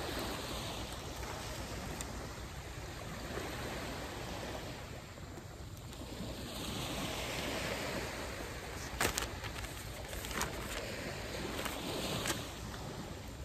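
Small waves washing on a sandy shore, the surf swelling and fading every few seconds. Over it come a few sharp crinkles of a paper instruction leaflet being unfolded and handled, the loudest about nine seconds in.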